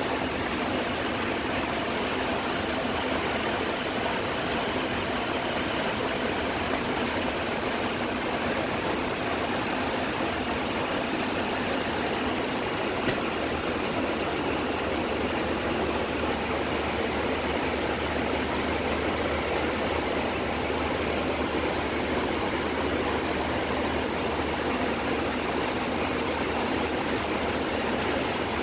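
Steady rushing noise with a low hum underneath in a Boeing 737 flight deck, unchanging throughout, with one faint tick about halfway through.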